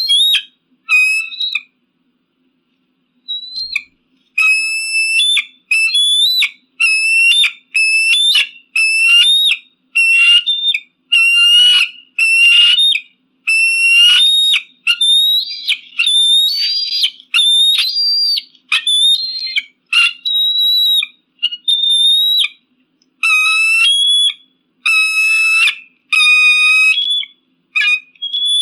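Eagle calling: a long series of high, whistled calls, about one a second, after a short pause near the start.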